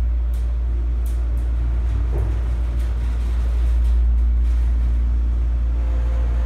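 Schindler 330A hydraulic elevator car travelling upward, heard from inside the cab: a steady low rumble with a faint hum of steady tones above it.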